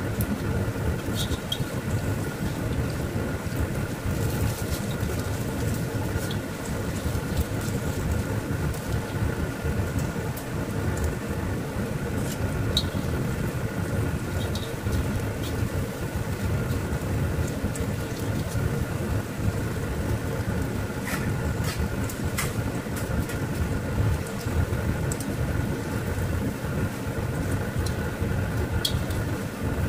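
Bakwan fritters deep-frying in hot oil in a wok: a steady sizzle and crackle over a constant hum. A few light metallic clicks come from tongs and a slotted skimmer touching the wok, the last near the end as the fritters are lifted out.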